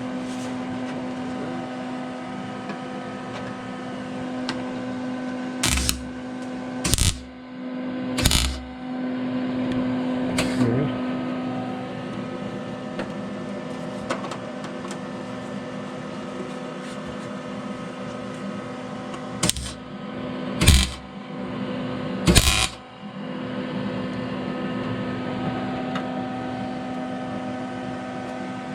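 Tack-welding a steel quarter patch panel: six short welds, each a fraction of a second, in two groups of three. A steady hum runs underneath.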